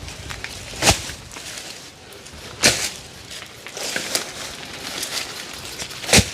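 Three sharp knocks, about a second, three seconds and six seconds in, over faint outdoor rustling.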